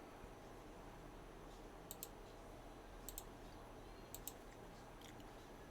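Faint pairs of sharp clicks from operating a computer, roughly one pair a second starting about two seconds in, over a low steady hum.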